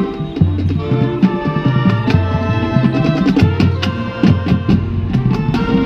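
High school marching band playing on the field: sustained low brass notes in repeated phrases, punctuated by sharp drumline and percussion strikes.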